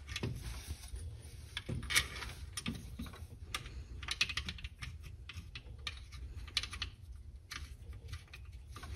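Irregular light metallic clicks and taps of the alternator mounting bolts being fed and started by hand into a BMW E60's alternator bracket, with the alternator shifted in its mount.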